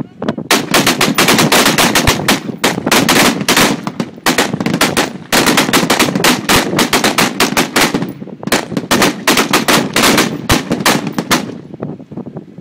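Many rifles firing at once along a firing line with tracer rounds: a fast, continuous crackle of overlapping shots, with brief lulls about five and eight seconds in, thinning out near the end.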